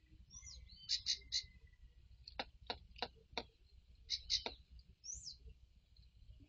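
Wild birds calling: short, sharp high notes in pairs, a couple of quick rising-then-falling whistled notes, and a run of five sharp clicks about half a second apart in the middle.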